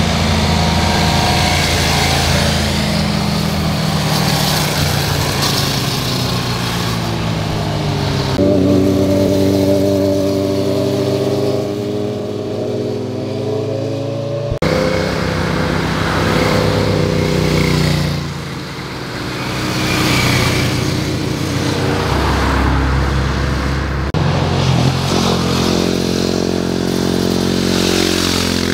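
Motorcycle engines as the bikes pass through a tight bend one after another, each engine's pitch rising and falling as it revs and accelerates out of the corner.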